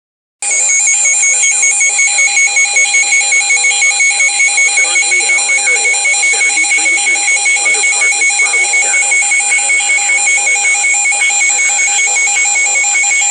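Weather alert radio sounding its alarm for a tornado warning: a loud, shrill electronic beep pulsing several times a second without a break. A faint voice runs under it.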